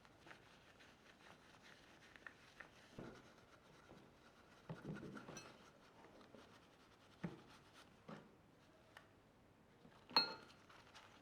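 Quiet handling of small coffee-machine parts during cleaning: faint scratching and scattered clicks and light knocks, with a sharper clink that rings briefly about ten seconds in.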